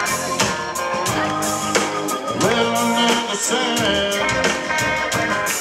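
Live blues-rock band playing an instrumental passage: drums, bass, electric guitars, keyboard and horns, with a lead line that bends in pitch about halfway through.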